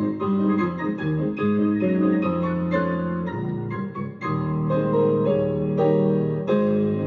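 Piano playing a slow piece in held chords, with new chords struck every half second to a second.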